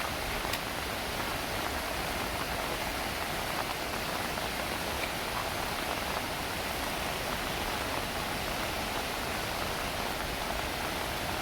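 Heavy rain falling steadily: a dense, even hiss of rain on surfaces with a few separate drops standing out.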